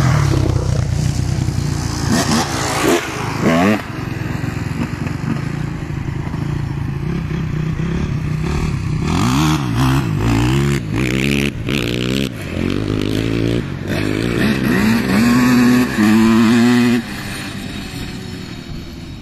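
Motorbike engine revving up and down over and over, its pitch rising and falling in repeated sweeps. About seventeen seconds in the level drops sharply, leaving a quieter engine sound that fades.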